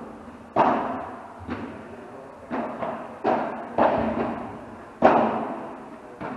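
A padel rally: the ball struck back and forth by rackets and bouncing, a series of sharp hits about once a second, each echoing briefly.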